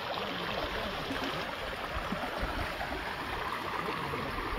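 Shallow stream flowing over a stony bed: a steady rush and ripple of water.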